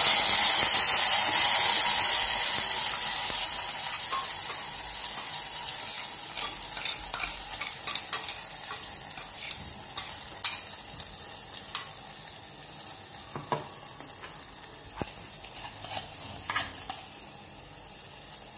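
Wet ground onion-tomato masala paste dropped into hot oil with mustard seeds and cumin in an aluminium pot: a loud sizzle that dies down over the first few seconds, then a quieter steady sizzle as the paste fries. A spoon scrapes and clicks against the pot now and then as the paste is stirred.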